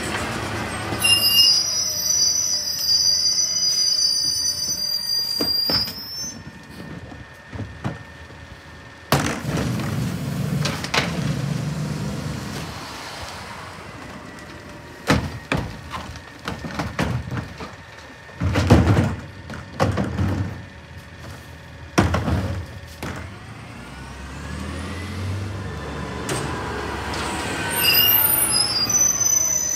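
Rear-loader garbage truck's brakes squealing high as it pulls up to a stop, then the engine running with several loud bangs and clatter as trash carts are tipped and emptied into the McNeilus rear hopper. A second brake squeal comes near the end as the truck pulls up at the next stop.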